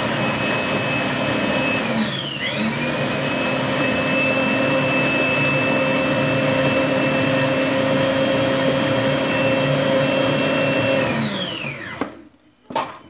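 Electric food processor motor running steadily with a high whine while grinding roasted eggplant. Its pitch dips briefly about two seconds in as the load bites, then recovers. Near the end it is switched off and winds down with a falling pitch, followed by a couple of knocks.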